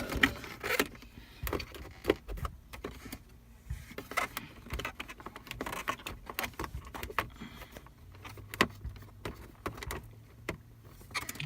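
Irregular plastic clicks, taps and rustling as the wiring connectors and plastic trim of the center console are handled and fitted together.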